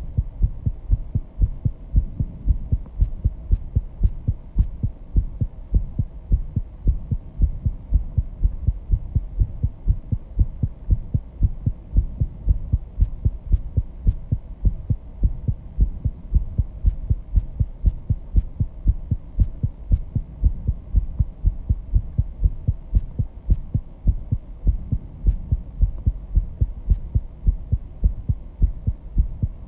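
A person's heartbeat after intense exercise, picked up close by a microphone: a steady, even run of low thuds.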